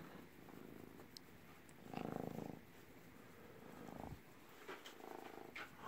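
Long-haired domestic cat purring faintly while being stroked, the purr rising in a few soft stretches about two seconds in, around four seconds and near the end.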